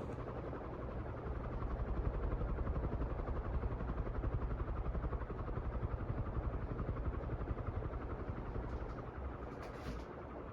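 Wellspeed 42-inch three-blade ceiling fan running on high speed: a steady whoosh of moving air with a fast pulsing chop from the blades.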